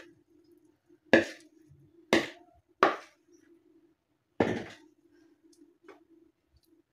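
Spoon knocking against a plastic mixing bowl and metal loaf pan while thick bread dough is scraped out: four sharp, separate knocks a second or so apart, then a faint tick, over a faint steady hum.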